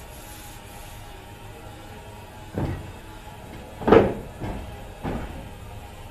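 A few dull knocks over a steady background noise: one about two and a half seconds in, the loudest about four seconds in, then two lighter ones.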